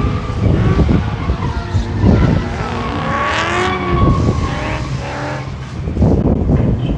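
Drift car engine revving hard with tyre squeal, its pitch climbing and then dropping back about halfway through. Irregular low thumps from something knocking on the microphone run underneath.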